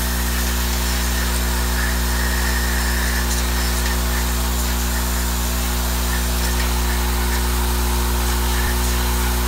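Vibratory bowl feeder running: a steady electrical hum from its drive, with a constant rattle of small tubes shaking along the bowl and linear feed track.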